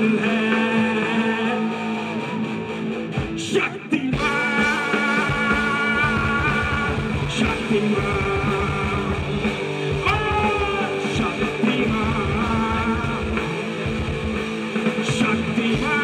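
Live rock band playing through a PA, with electric guitars and drums and a male singer singing over them; the music drops out briefly about four seconds in.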